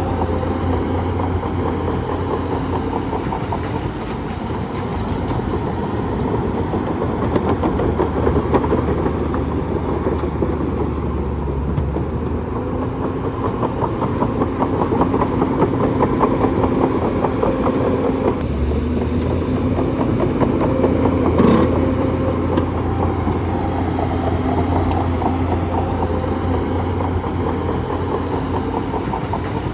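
Bulldozer's diesel engine running steadily, its low drone shifting in pitch a few times, with one sharp clank about two-thirds of the way through.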